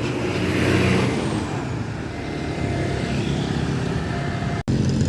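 Intercity bus's diesel engine running as it moves slowly past in congested traffic, with a short hiss about half a second in.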